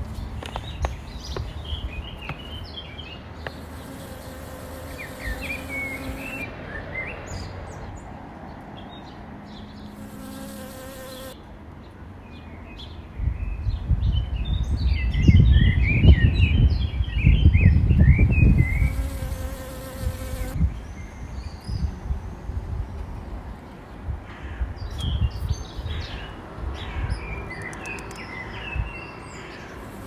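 Honey bee buzzing in spells, a low hum that comes and goes, with small birds chirping and twittering throughout. About halfway through, a loud low rumble lasts several seconds.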